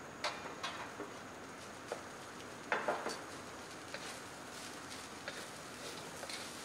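Spatula knocking and scraping against a steel wok while fried rice is stir-fried and scrambled egg is tipped in from a metal tray: a few scattered clicks and taps, the loudest cluster about three seconds in, over a faint steady hiss.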